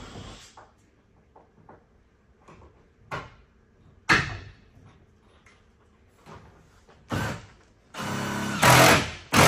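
Scattered knocks and clatter on the hollow plastic shell of a hunting blind. About eight seconds in, a cordless drill runs for about a second and a half, driving a roof bolt, and ends in a loud harsh burst.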